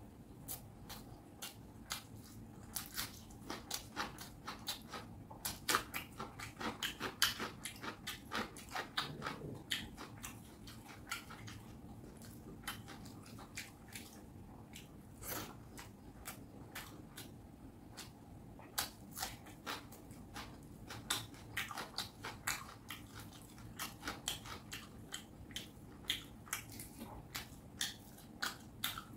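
Close-miked chewing and mouth sounds of a person eating fish curry with rice: many quick, sharp clicks, coming thick and fast, thinning out for a while in the middle and picking up again.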